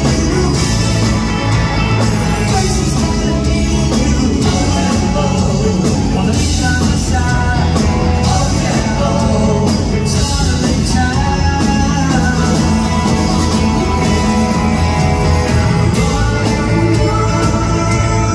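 Rock band playing live: electric guitars, bass guitar and drums at a steady, loud level. Heard through a phone recording from the audience.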